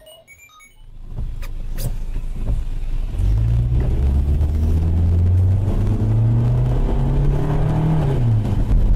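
Car engine and road noise heard from inside the cabin as the car pulls away. The noise builds from near quiet, then settles into a steady low hum whose pitch steps up and down as the car accelerates. There are two short clicks about a second and a half in.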